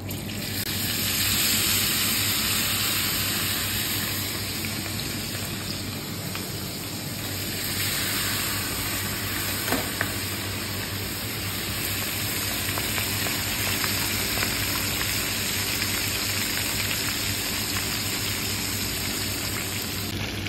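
Two whole masala-marinated fish frying in hot oil in a pan. The sizzle swells as the fish are laid in, then holds as a steady sizzle, with a couple of light clicks about ten seconds in.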